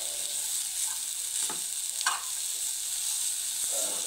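Grated coconut and jaggery sizzling in ghee in a metal pan as a spatula stirs through the filling, with a steady sizzle and a few scrapes against the pan, the sharpest about two seconds in.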